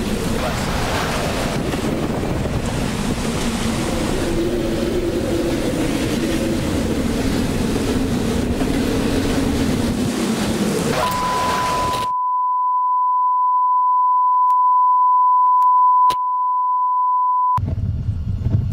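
Roar of a simulated tornado: dense rumbling wind noise with a low wavering drone, which stops abruptly about twelve seconds in. A steady, single-pitch test tone then sounds for about five seconds, and low rumbling wind noise returns near the end.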